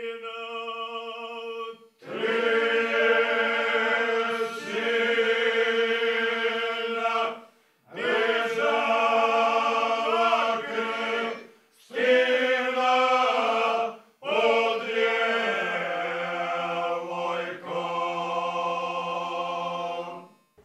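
A cappella group of men singing ojkača, the traditional Krajina folk song style, in long held phrases over a steady drone note, broken by short pauses for breath.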